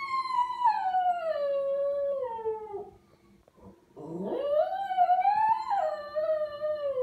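A Lhasa Apso howling at an ambulance siren in long, wavering, siren-like howls. The first slides down in pitch and dies out about three seconds in; after a short pause, a second swoops up, holds, and falls away near the end.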